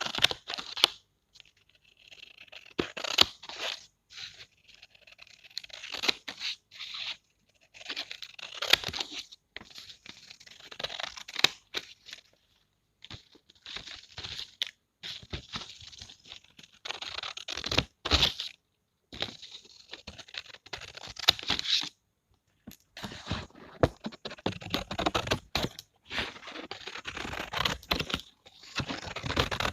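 Scissors cutting through paper: a run of short crisp snips and slicing strokes with brief pauses between cuts.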